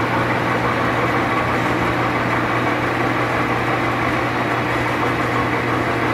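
Sharp 21 x 120 engine lathe running with its geared headstock turning: a steady mechanical hum with a strong low tone, while the power cross feed drives the tool post.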